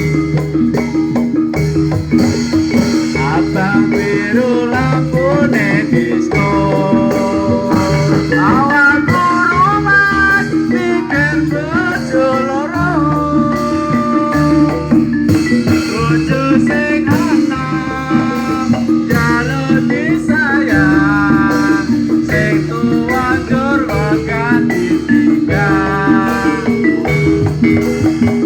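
Javanese gamelan-style music: metal mallet percussion plays a repeating pattern, with a singer's wavering voice over it.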